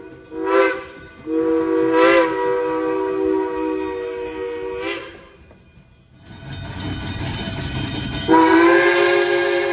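K-28 steam locomotive No. 473 sounding its steam whistle in long blasts, a chord of several steady tones, broken briefly twice in the first two seconds. The whistle dies away about five seconds in, leaving the locomotive's low rumble with a rapid ticking, then the whistle blows again loudly near the end.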